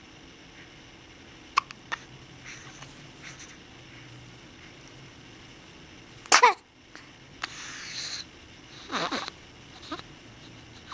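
Hiccups: two small sharp hiccups about one and a half and two seconds in, a loud voiced one about six seconds in, and another that falls in pitch about nine seconds in, with a breathy noise between them.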